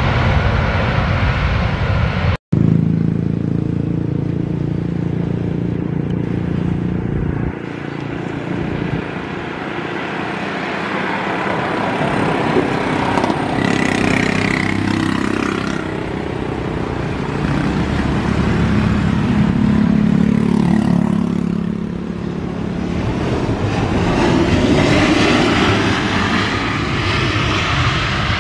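Jet engines of landing Boeing 737 airliners (CFM56-7B turbofans): one jet's rollout, a momentary cut about two and a half seconds in, then a Boeing 737-900ER approaching, touching down and rolling out. The engine noise is quieter for a few seconds, swells around the touchdown, and swells again near the end during the rollout.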